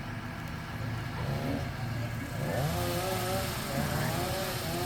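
A large engine, typical of a truck or work machine, running steadily at idle with a low hum. Faint voices waver over it from about a second in.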